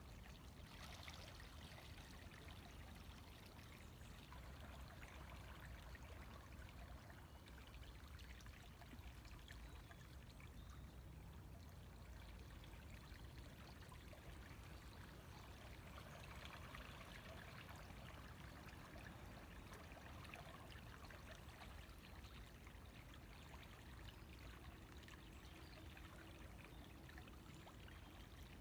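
River water flowing and trickling, a faint, steady rush with no break.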